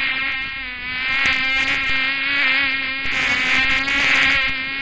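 Mosquito buzzing in flight: a steady, high droning whine that wavers slightly in pitch.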